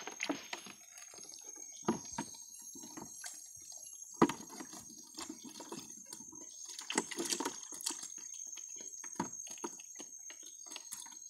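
Water dripping and splashing out of a bubu fish trap held over a plastic bucket, with scattered knocks and rattles as the trap is tipped and shaken to empty the fish; one sharp knock about four seconds in is the loudest.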